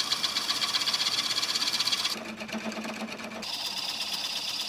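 Homemade Gingery lathe spinning a plywood disc while a hand chisel scrapes it round, with a rapid, even mechanical ticking. The sound changes abruptly about two seconds in and again about three and a half seconds in.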